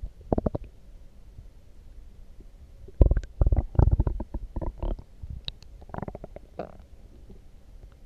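Human stomach gurgling and rumbling in irregular runs of short pops and bubbling, with a few just after the start, a dense cluster from about three to five seconds in, and another around six seconds. The growling is set off by coffee, the uploader says.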